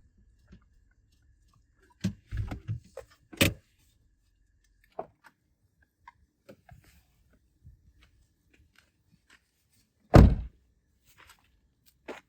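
Scattered knocks and clatter of things being handled, with one heavy thump about ten seconds in and a sharp knock near the end.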